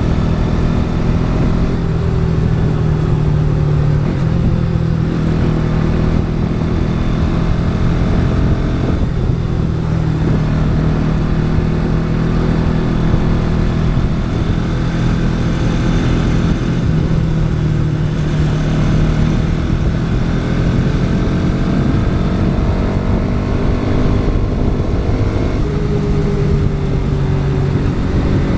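Bajaj Pulsar NS200's single-cylinder engine running under way, recorded on the bike, its note rising and falling with the throttle and dipping briefly a few times as gears change. A steady low wind rumble lies underneath.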